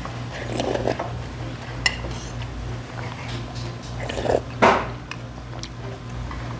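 Eating ramyeon noodles and broth from a bowl: slurping, with a few light clicks of chopsticks on the bowl and one loud slurp about four and a half seconds in, over a steady low hum.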